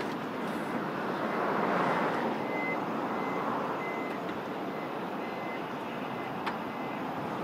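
Taxi pulling away, with steady street traffic noise that swells about two seconds in. A thin electronic beep repeats about every half second over it, and there is a single click near the end.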